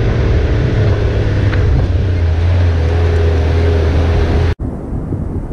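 Toyota Land Cruiser HJ75's diesel engine pulling the vehicle slowly along a soft sand track, a steady drone whose pitch drops about two seconds in. It cuts off abruptly near the end and gives way to quieter wind noise on the microphone.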